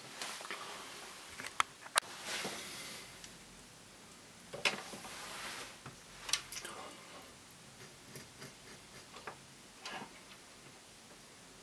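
Irregular clicks and short rustling scrapes, with the sharpest clicks about one and a half and two seconds in, and smaller scattered ticks later.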